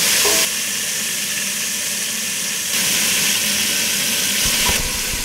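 Beef roulades searing in hot fat in a stainless steel pot: a steady sizzle that drops and rises in level a couple of times, with a few soft low knocks near the end.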